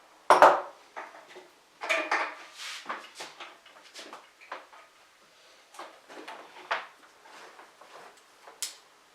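Irregular knocks, clinks and clatters of BMX parts and tools being handled as the bike is put together, with the loudest knock about half a second in and a cluster of clatter around two seconds in.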